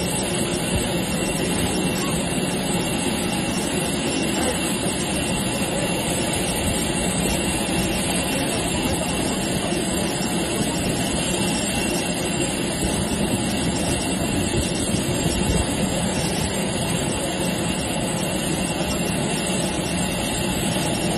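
Steady, loud jet noise from an Airbus A320 idling on the taxiway, heard close under the aircraft.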